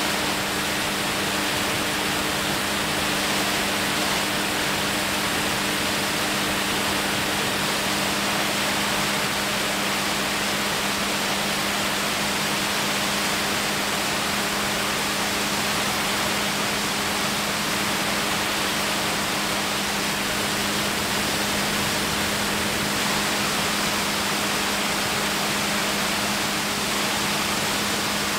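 Steady drone of a light aircraft's engine and propeller in level flight: a low hum at an even pitch under a loud, constant rush of air.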